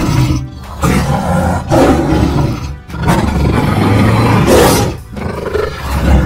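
Lion roaring: about five long roars with short breaks between them, over background music.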